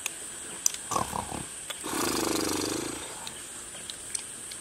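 A person's short falling vocal sounds about a second in, then a drawn-out low groan-like vocal sound lasting about a second around the middle.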